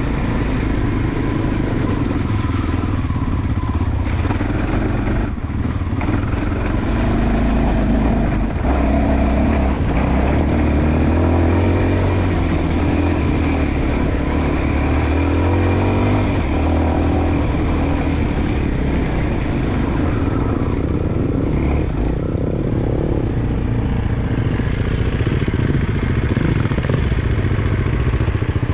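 Enduro dirt bike engine running under load while riding a trail, the revs rising and falling with the throttle, with a mix of engine and wind noise.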